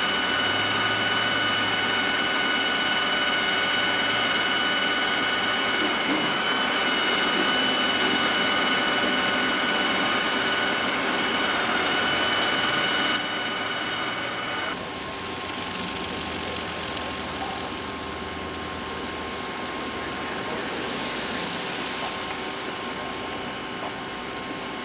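Steady mechanical engine noise with a constant whine, typical of vehicles idling or passing on the road. The sound drops in level and its whine changes pitch about thirteen to fifteen seconds in.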